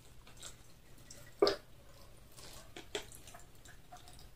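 Cola poured from a paper cup onto ice in a glass jar: a thin stream dripping and crackling over the ice, with two louder clicks about one and a half and three seconds in.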